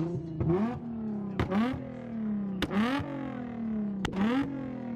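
Car engine being two-stepped against its launch-control rev limiter: about three quick rev-ups, each peaking in sharp bangs and pops from the exhaust, with the revs sinking between them.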